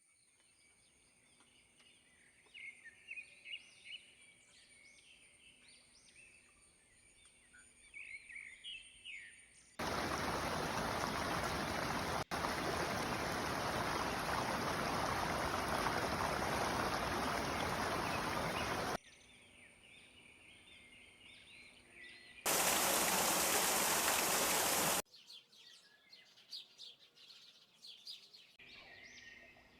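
Birds chirping, quietly and intermittently. The chirping is broken twice by a loud, steady rushing noise, first for about nine seconds and then for a couple of seconds. Each rushing passage starts and stops abruptly.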